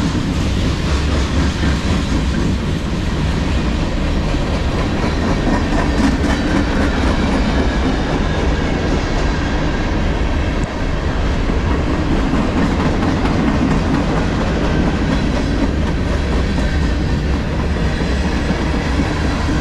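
Mixed freight train's cars rolling past at close range: a loud, steady rumble of steel wheels on the rails.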